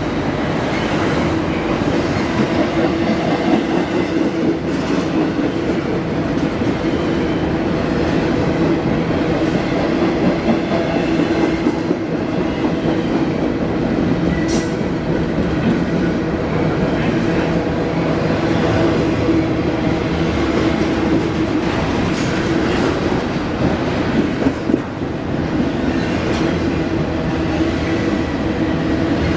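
Double-stack intermodal container train passing at close range: a steady, continuous sound of its wheels rolling over the rails, with faint scattered clicks.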